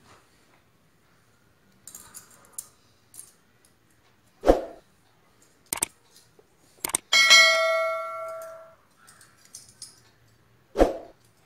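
Clothespins being handled and clipped on, with faint clicks and clatter. Two dull thumps come about four and a half and eleven seconds in. A single bell-like ding about seven seconds in rings out and fades over about a second and a half.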